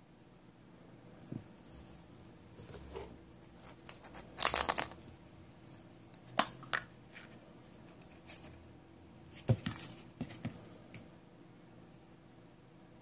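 Small plastic toys handled close up: scattered clicks, taps and rustles from a plastic surprise egg and a minifigure being handled. The loudest is a burst of crinkly rustling about four and a half seconds in, then a sharp click around six and a half seconds and another cluster of clicks and rustles around ten seconds.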